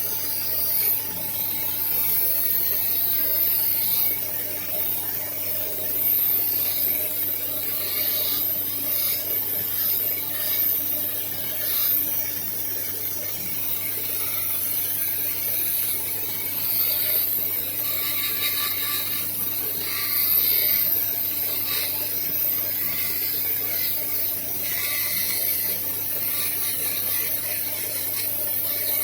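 Carving tools working on stone: irregular scraping and scratching over a steady low hum.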